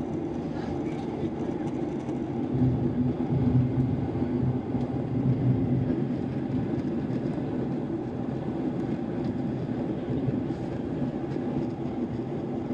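Steady jet engine drone and airflow rush heard inside an airliner's cabin during the climb after takeoff, with a low hum that swells a little a few seconds in.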